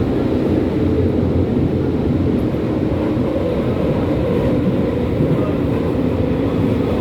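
Berlin U-Bahn H01 train under way, heard from inside the car: a steady rumble of wheels and running gear with a faint low hum.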